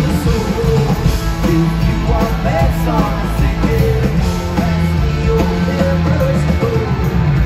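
Rock band playing live: electric guitar over bass and drums, loud and steady.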